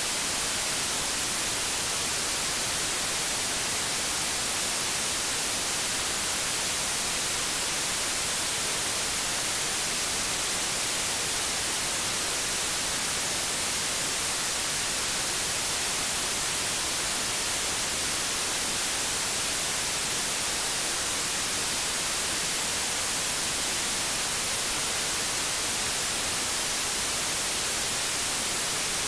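Steady white noise: an even, bright hiss with its energy weighted toward the high frequencies, holding constant with no breaks, tones or changes.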